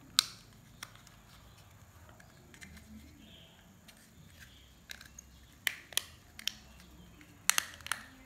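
Sharp plastic clicks and snaps as a universal power-window rocker switch is pressed into its plastic housing and clips into place: a loud click just after the start, then a cluster of clicks in the last few seconds.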